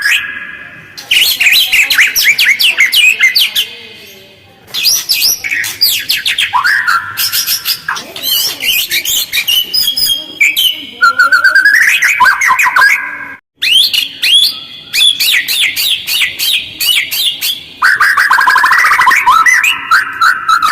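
White-rumped shama (murai batu) singing a loud, fast song of harsh, rapid chattering and sweeping whistled notes in dense phrases, separated by short pauses. It is a lure song of the kind used to provoke other shamas into answering.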